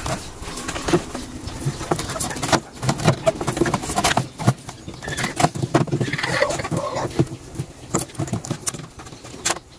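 Black vinyl electrical tape being peeled off its roll and wound around wire splices, with irregular crackling clicks as it pulls free, and the rustle of the wires being handled.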